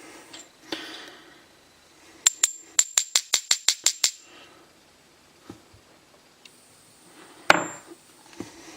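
Light metal-on-metal tapping from a lock being taken apart: a quick run of about ten small metallic clicks with a bright ring, then one louder knock near the end.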